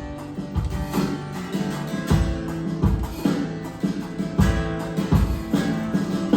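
Live worship band playing an instrumental passage: strummed acoustic guitar over a steady kick-drum beat, about one beat every three-quarters of a second.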